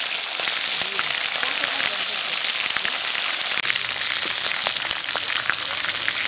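Hilsa fish pieces, freshly added to hot oil in an iron karahi, frying: a steady high sizzle full of small crackling pops.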